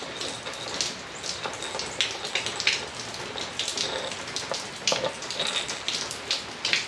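Steady rain falling, with many irregular drips and taps of drops striking nearby surfaces.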